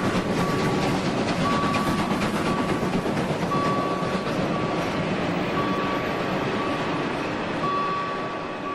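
Train running sound effect: a dense rattling rail noise that slowly fades toward the end. An electronic warning beep repeats through it in a long-then-short pattern about every two seconds.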